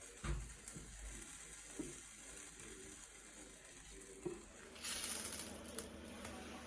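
Quesadilla wrap frying in an oiled pan, a faint sizzle with light knocks from handling it, and a brief louder hiss about five seconds in.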